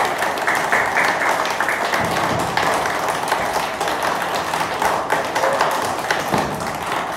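A group of children clapping together, a dense, continuous patter of many hands.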